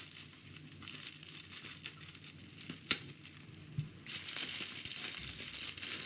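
Plastic mailer bag and bubble wrap crinkling as they are handled and pulled open, with a sharp click about three seconds in and louder crinkling over the last two seconds.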